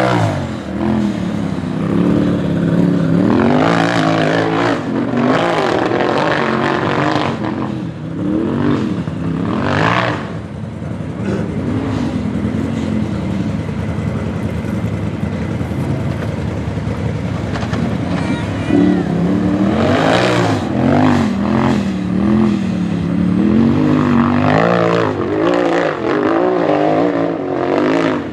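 Off-road race buggy's engine revving hard over and over, its pitch climbing and dropping repeatedly as it powers up a steep dirt hill climb. There are a few short bursts of noise along the way.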